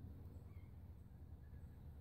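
Near silence: a faint, steady low background rumble.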